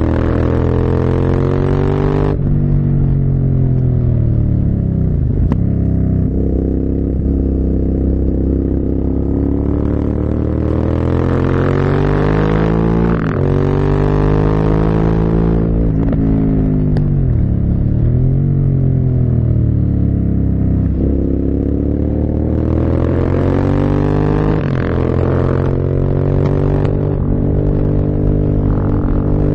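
Motorcycle engine under way, revving up through the gears and dropping back again several times, its pitch climbing under acceleration and falling sharply on gear changes and when slowing. A hiss swells with the engine during the harder pulls.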